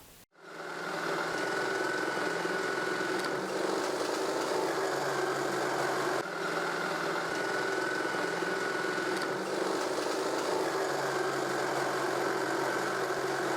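Jigsaw mounted under a homemade jigsaw table, running steadily as it cuts a board into strips, with a brief dip about halfway through.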